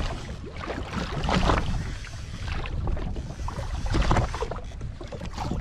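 Wind buffeting the microphone and water around a jet ski: an irregular rushing noise over a low rumble, with louder surges about a second and a half in and again near four seconds.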